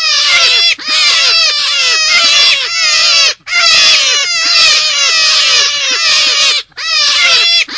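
Forest rabbit calls from a lure recording: fast runs of high, downward-sliding squeals, several a second, in long phrases broken by short pauses about a second, three and a half seconds and near seven seconds in.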